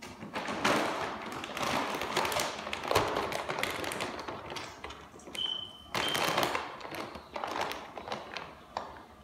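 A plastic bag of hamster food crinkling and rustling as it is handled, with some thumps and taps.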